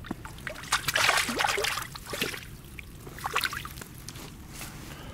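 Hooked crucian carp splashing at the water's surface as it is drawn in to the bank, in several irregular bursts of splashing and sloshing water.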